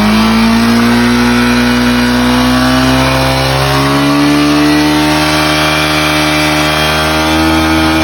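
Small motorcycle engine held at high revs, its pitch creeping slightly higher, then dropping back toward idle right at the end. The engine is kept revved for a charging-system test, with the battery voltage being read.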